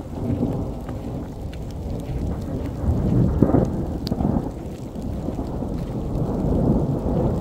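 Thunder rumbling, swelling to its loudest about three seconds in and then rolling on more softly.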